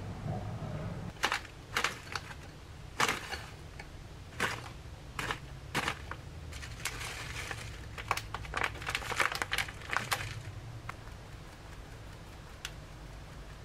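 An icing sugar bag crinkling and light knocks and rustles from a metal mesh sieve over a bowl as the sugar is poured in and sifted. The sounds come as a string of separate clicks and rustles, densest a little past the middle, over a steady low hum.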